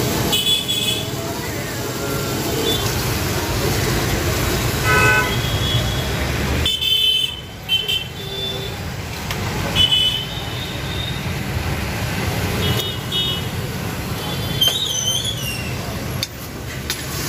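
Busy street ambience: a steady rumble of traffic with short vehicle horn toots sounding several times.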